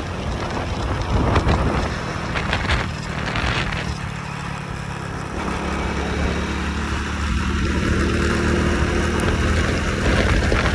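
A small vehicle's engine running on the move under a haze of road noise. Its engine note changes about halfway through.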